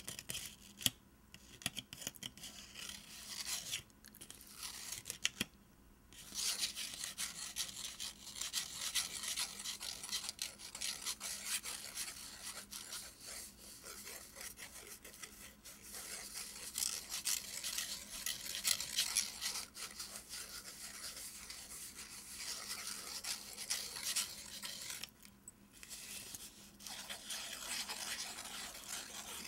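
Fingernails scratching and tracing over the paper wrapper of a bar of handmade soap: a dense, fast, high-pitched scratching with a few short pauses, one near the start, two a few seconds in and one late on.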